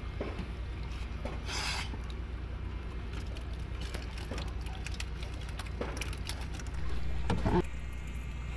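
Scattered knocks, clicks and rubbing as a small catch is unhooked from a hand line and handled over a painted wooden fish box in a small boat, with a louder bump and scrape about seven seconds in, over a steady low rumble.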